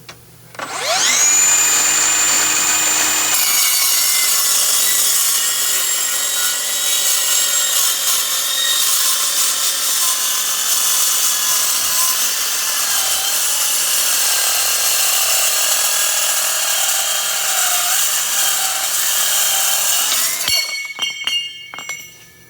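Milwaukee M18 Fuel 8-inch cordless metal-cutting circular saw spinning up with a rising whine, running free briefly, then cutting through 2x3 steel tube with 3/16-inch wall for about 17 seconds. The cut ends about 20 seconds in and the saw winds down, followed by a few metallic clinks.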